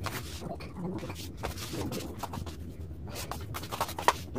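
Rustling and scattered light clicks and knocks from hands handling a massage chair's padded covers and fittings during assembly.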